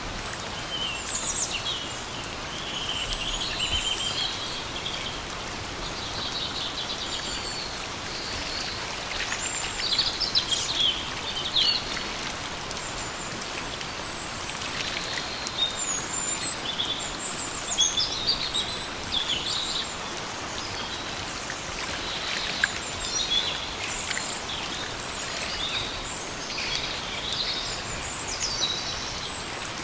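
Steady rain falling in a forest, with songbirds chirping and trilling over it at intervals, busiest about a third of the way in and again past the middle.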